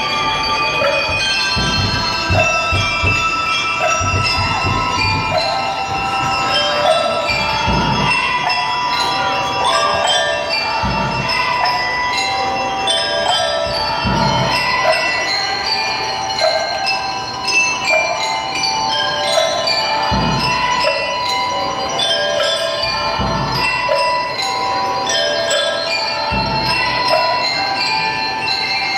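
A drum and lyre corps playing: bell lyres ring out a melody in quick notes over scattered deep bass drum strokes, several in quick succession near the start and single strokes every few seconds later on.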